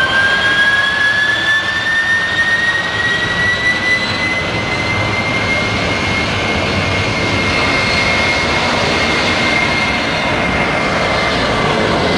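Airbus A310 freighter's twin jet engines spooling up for the takeoff roll: a whine that climbs in pitch over the first several seconds and then holds steady at takeoff power, over a constant roar of engine noise.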